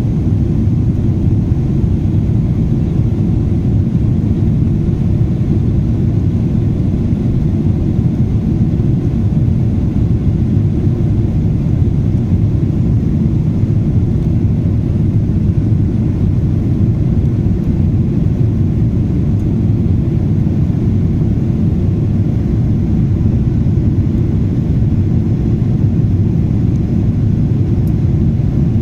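Steady low rumble of an Emirates Airbus airliner's engines and airflow, heard from inside the cabin at a window seat as the plane climbs after take-off.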